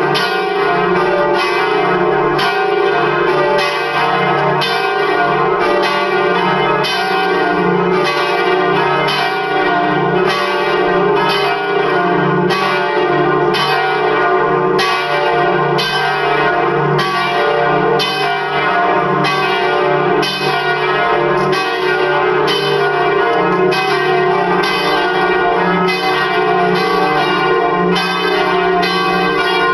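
Four swinging church bells, tuned D3, D♯3, F3 and G3, ringing together in a full peal. Their strikes overlap at a steady, even rate with no pause.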